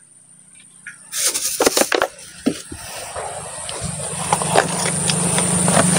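Water splashing briefly in a basin about a second in, then a metal spoon clicking and scraping in a plastic bowl as flour batter is stirred, growing louder toward the end.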